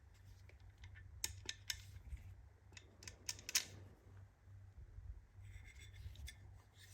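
Scattered faint clicks and light metallic clinks of small tool parts being handled, over a low steady hum.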